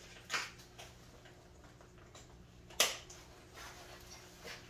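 A few sharp clicks and light rustles as a Tacticon Elite plate carrier's nylon straps and buckles are handled and adjusted on the wearer. The loudest click comes nearly three seconds in, over a faint steady hum.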